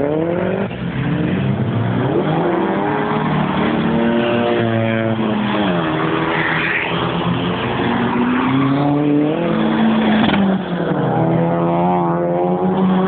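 Several car engines revving hard as the cars accelerate past, their pitch climbing steeply, dropping at each gear change and climbing again, with more than one engine heard at once.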